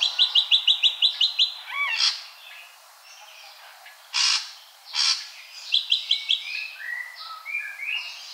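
Ashy drongo singing: a fast run of short, clipped notes, then a few harsh calls, a second brief run, and short whistled notes near the end.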